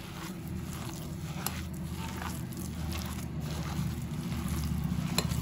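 Hands mixing raw chicken mince by hand with breadcrumbs, egg and milk, faint wet squishing over a low steady hum. The hum cuts off near the end.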